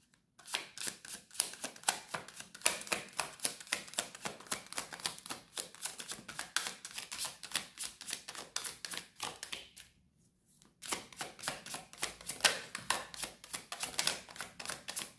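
A deck of tarot cards being shuffled by hand: a fast run of light card clicks and slaps, with a pause of under a second about two-thirds of the way through before the shuffling starts again.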